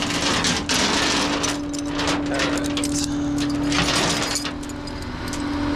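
Tow truck engine running with a steady hum, with clanks and rattles of metal tow hooks and chains being handled.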